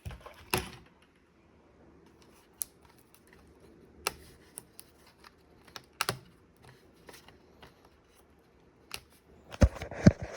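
Scattered sharp plastic clicks and taps from handling the parts of a Compaq V3000 laptop during disassembly, with a denser clatter of louder knocks near the end.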